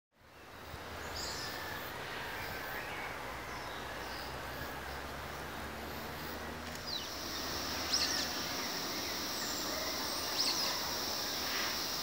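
Outdoor forest ambience fading in: a steady background hiss with a few short bird chirps, and a steady high insect drone from about halfway through.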